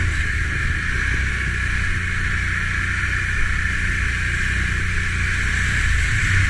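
Can-Am ATV engine running steadily as the quad rides along, heard from a camera mounted on the handlebars.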